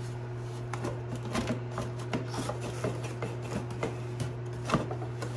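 Cardboard box and paper insert rubbing and scraping as a blower motor is worked out of its box by hand, with irregular small clicks and a sharper knock near the end. A steady low hum runs underneath.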